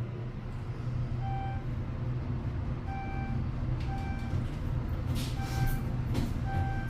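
Elevator car travelling with a steady low hum, while a short electronic beep sounds over and over, about once a second.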